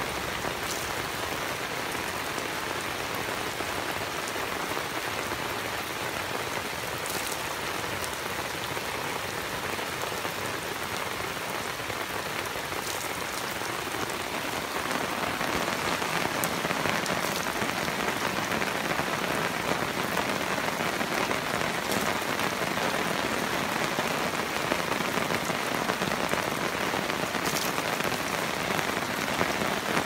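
Heavy rain falling steadily, with a few sharper drop hits, growing heavier about halfway through.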